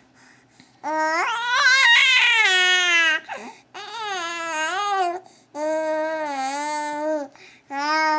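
A young baby vocalizing in four long, drawn-out pitched wails that waver up and down: her attempt at singing. The first, about a second in, is the loudest, rising and then falling in pitch.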